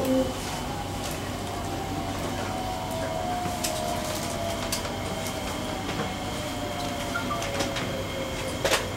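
Interior of an SMRT C151B train car standing at a station with its doors open: a steady hum with a faint whine that slowly falls in pitch, scattered light clicks, and a sharper knock near the end.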